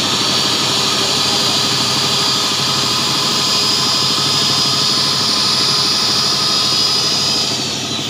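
Electric facing tool of an HDPE butt-fusion machine running with a steady high whine as it trims the ends of the 90 mm HDPE pipe and tee flat, so the faces meet flush for heat fusion. Near the end its pitch falls as the motor winds down.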